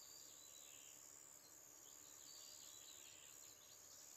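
Near silence: faint outdoor ambience with scattered bird chirps over a steady high-pitched tone.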